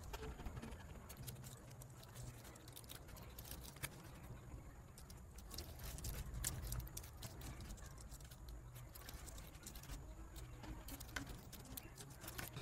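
Faint computer keyboard typing: irregular clicks of keys being struck over a low hum.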